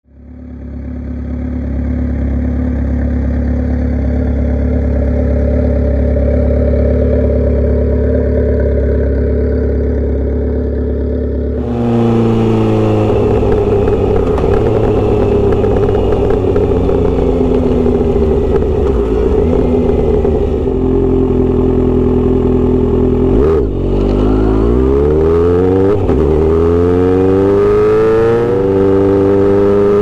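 Kawasaki Z900RS inline-four engine through a Misty Kintaro short aftermarket exhaust, running at a steady, unchanging pitch for about twelve seconds. Then the bike is riding, the exhaust note repeatedly rising as it accelerates and dropping at each gear change, with wind and road noise.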